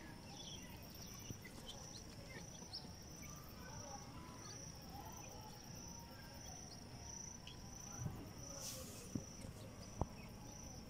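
Cricket chirping steadily, a high-pitched pulse repeating about twice a second, with faint scattered bird chirps.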